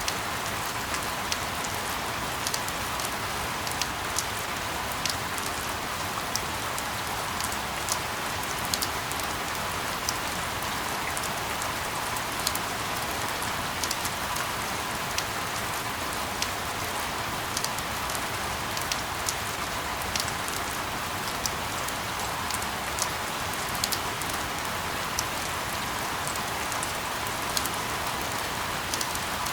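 Steady rain: a continuous even hiss with scattered sharp drop ticks at irregular moments, used as a sleep sound.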